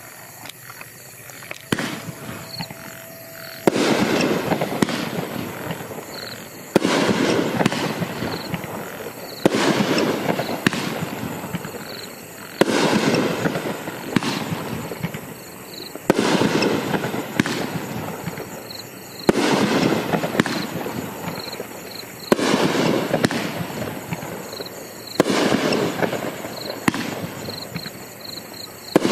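Magnus 'Chain Reaction' 12-shot, 500-gram firework cake firing: a sharp bang about every three seconds, each followed by a few seconds of dense crackling that dies away before the next shot.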